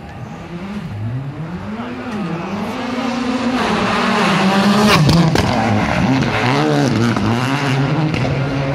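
Rally car approaching at speed and passing close by, its engine pitch climbing and dropping repeatedly through gear changes, loudest about halfway through. A couple of sharp cracks sound around the loudest point.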